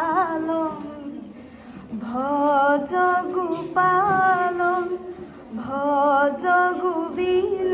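A young woman singing solo into a microphone, in short phrases of long held notes with brief breaks between them.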